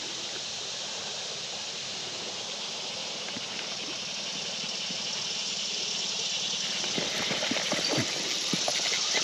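Shallow creek water running over rocks, a steady hiss that grows louder. From about seven seconds in there are scattered small clicks and splashes.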